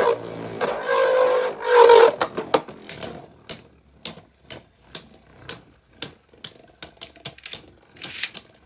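Two Beyblade tops, Grand Dragon and Glide Ragnarok, spinning in a plastic Beystadium: a loud whirring scrape for about the first two seconds, then a string of sharp, irregular clacks, some ringing, as the tops collide again and again.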